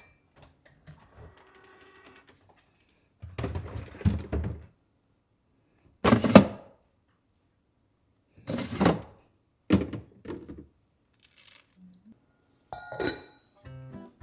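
Kitchen cabinet door and a pull-out drawer being opened and plastic food containers handled: a series of separate knocks and clatters, the loudest about six seconds in.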